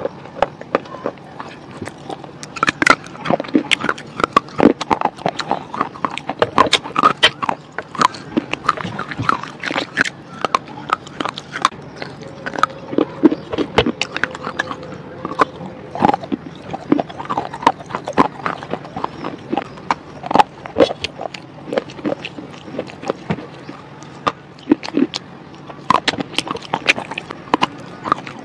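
Close-up crunching of red slate bars being bitten and chewed, a dense run of sharp crisp crunches several a second.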